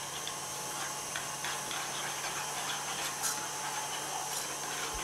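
Jam warming in a pan and being stirred: faint, scattered light ticks and clicks over a steady hiss and hum.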